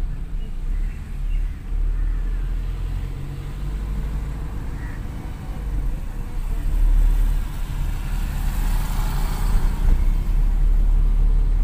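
Steady low rumble of a moving vehicle heard from inside while driving on a paved road, with a swelling rush of noise around eight to ten seconds in.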